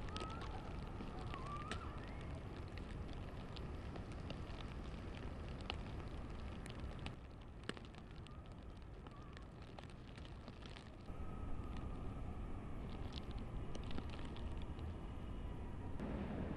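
Outdoor ambience: a steady low rumble and hiss with scattered faint clicks and ticks. It drops quieter a little after seven seconds and comes back up near eleven.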